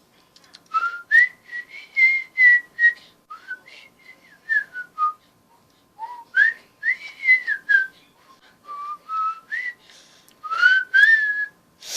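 A person whistling runs of short, breathy notes that glide up and down in pitch, with brief pauses between the runs.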